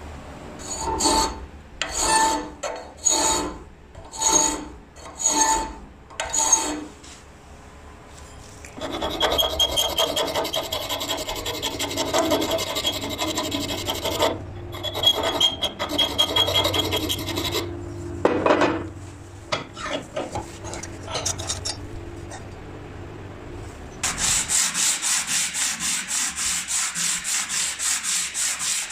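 Flat hand file rasping across red and yellow brass strips held in a bench vise: about six slow, separate strokes, then a long run of quick, continuous filing strokes. Near the end, brass rubbed back and forth on a sheet of sandpaper in rapid, even strokes.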